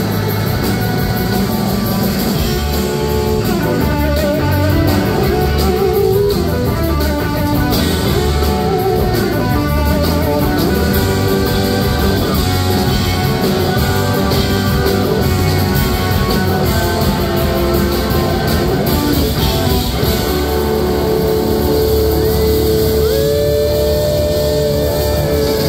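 A live rock band plays, with an electric guitar leading over drums and bass. Near the end the guitar plays gliding notes that bend in pitch.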